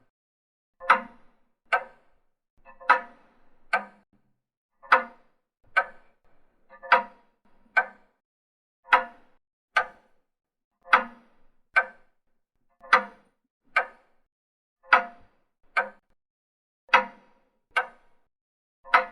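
Old mechanical clock ticking in a steady tick-tock rhythm: two clicks about a second apart, the pair repeating every two seconds, the second click of each pair a little softer.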